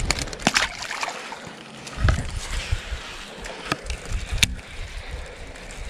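A released largemouth bass splashes back into the water just after the start, followed by scattered knocks and a few sharp clicks from a fishing rod and reel being handled in a bass boat.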